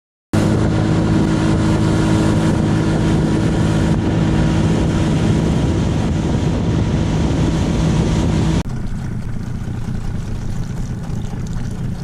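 Outboard motor of a small fishing boat running steadily at speed, with the rush of water and wind over the hull. About two-thirds of the way through it cuts off abruptly to softer wind and water noise without the engine.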